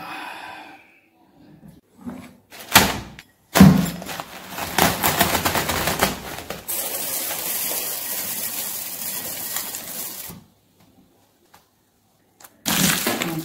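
Two sharp knocks, then several seconds of dense crinkling and rustling as a plastic bag of puffed rice is cut open with a knife. A short burst of handling noise comes near the end.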